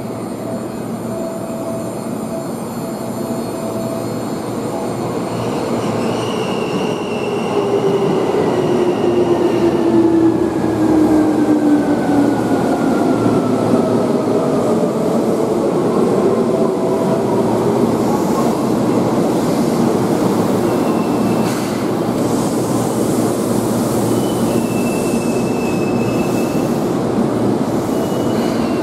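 Seibu 2000 series electric train running along the station platform: wheels on the rails and a steady rumble that grows louder over the first ten seconds. Through the middle, pitched tones slide downward, and short high squeals come near the end.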